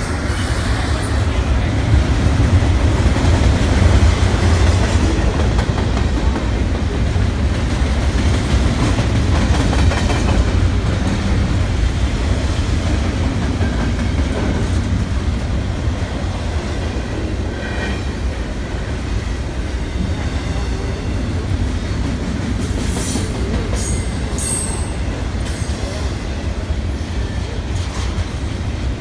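BNSF double-stack container freight cars rolling past: a steady heavy rumble and rattle of steel wheels on the rails, loudest in the first few seconds. A few short, high wheel squeals come in about three quarters of the way through.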